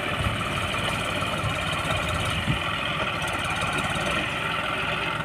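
John Deere 5210 tractor's three-cylinder diesel engine running steadily.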